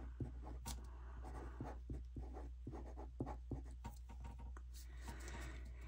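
Micron fineliner pen writing on planner paper: faint scratching of the nib with many small, irregular ticks as the strokes start and stop.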